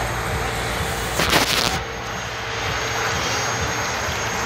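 Steady rushing noise with a low hum underneath, and a brief louder burst of hiss about a second in.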